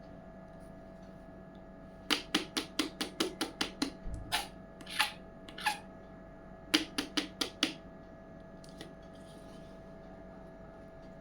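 Small toy kitchen pieces being handled: a quick run of about ten light clicks and taps, three short scraping rustles, then another quick run of about six clicks, over a steady faint hum.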